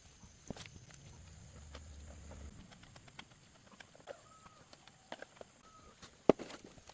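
Scattered light knocks and clicks, one sharp knock about six seconds in, with a few short faint chirps in the second half.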